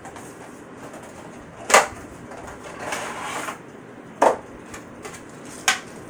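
Fan boxes being opened and handled on a table: three sharp knocks as boxes and parts are set down, with a stretch of cardboard-and-packaging rustle about three seconds in.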